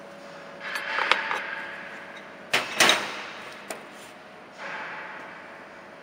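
BMG-1325M CNC router spindle milling metal plate: stretches of hissy cutting noise about a second in and again near five seconds, broken by sharp metallic clicks and knocks, the loudest two close together about two and a half and three seconds in.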